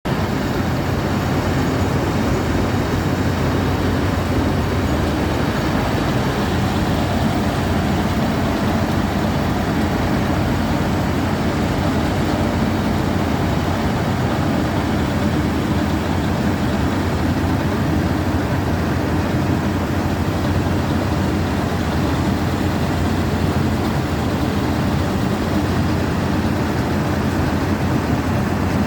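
Combine harvester running steadily: a constant, loud engine and machinery noise with no change in level.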